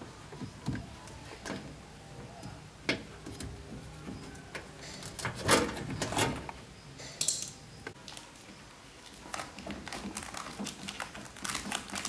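Hands handling the wiring harness and plastic parts inside a washing machine cabinet: scattered small clicks, taps and rustles, with a few louder clacks about halfway through.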